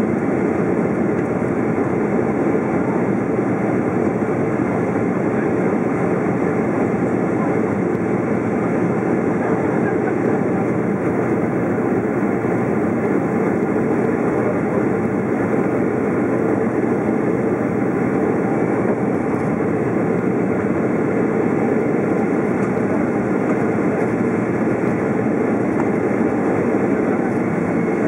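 Steady cabin roar of a Boeing 767-400ER climbing out after takeoff: its wing-mounted General Electric CF6 turbofans at climb power, heard through the cabin wall just behind the engine, mixed with rushing airflow. The noise holds an even level throughout.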